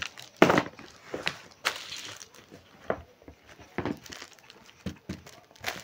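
Boxed suit fabrics being handled on a shop counter: a string of light knocks and rustles of cardboard boxes and their packaging, about one a second.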